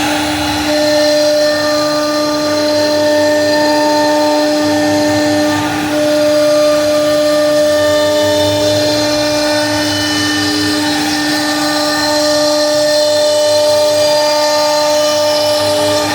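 CNC router running: a steady spindle whine throughout, with higher tones coming and going every few seconds as the machine moves.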